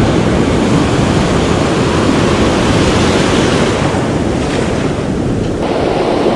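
Ocean surf breaking and washing in, with wind rumbling on the microphone. The rush eases briefly about five seconds in, then builds again.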